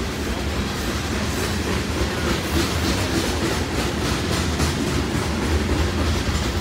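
Covered hopper cars of a freight grain train rolling past at speed: a steady rumble of steel wheels on rail, with repeated clickety-clack as the wheels cross rail joints.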